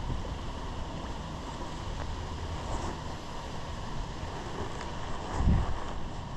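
Wind buffeting the microphone, an uneven low rumble over a steady rush, with one stronger gust about five and a half seconds in.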